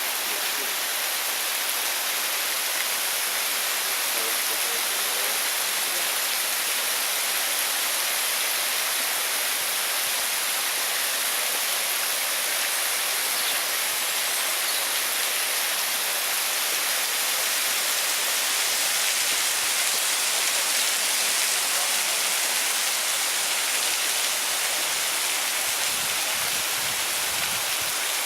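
Water of the Varovitets waterfall falling and splashing, a steady, unbroken rush. Some faint low rumbles come in near the end.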